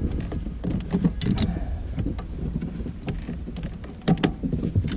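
Scattered light clicks, taps and rattles of hand tools and plastic trim pieces being worked in a car interior, over a steady low rumble.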